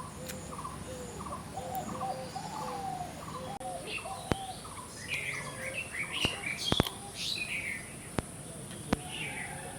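Birds calling: a short call repeats about twice a second for the first few seconds, then a jumble of higher chirps follows. A few sharp clicks come in the second half.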